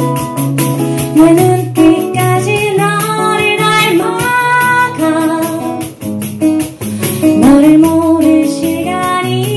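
Live music: a woman singing into a microphone, her voice gliding and wavering, over guitar accompaniment.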